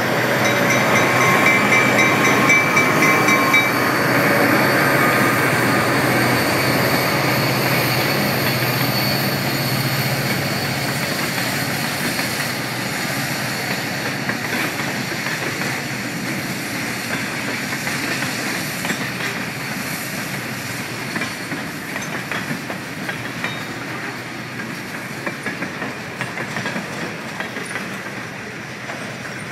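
Diesel-hauled freight train rolling past at a grade crossing: in the first few seconds the locomotive's engine goes by with a bell ringing, then the freight cars follow, wheels clicking over the rail joints in a steady clickety-clack that slowly gets quieter.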